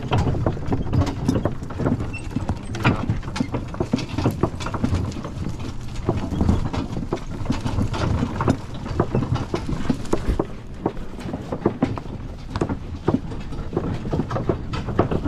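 Wooden farm wagon pulled by a team of two horses over a rough woodland track: a continuous clatter and rumble of the wagon body and wheels, with irregular knocks and the horses' hoofbeats.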